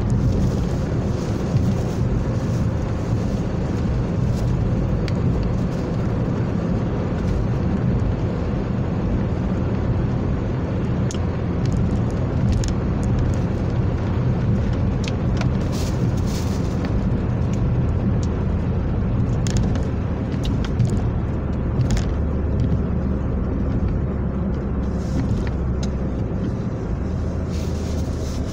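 Car engine and tyre noise heard from inside the cabin while driving at a steady speed, with scattered light ticks. The low engine note drops lower for a few seconds about three-quarters of the way through.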